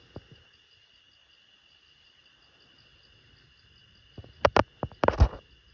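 A steady chorus of crickets and other night insects chirring. About four seconds in comes a quick run of five or six loud, sharp knocks or cracks, close by, of unknown origin.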